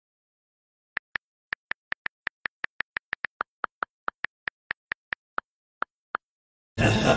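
Phone keyboard clicks from rapid typing on an iPhone: about two dozen short, even ticks, roughly five a second. Loud music cuts in abruptly near the end.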